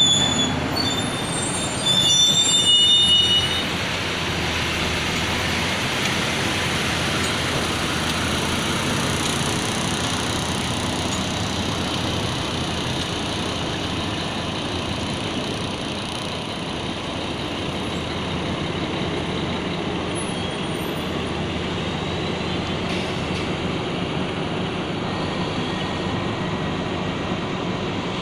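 Heavy diesel earthmoving machinery running steadily, with high-pitched metallic squeals and a louder surge in the first few seconds.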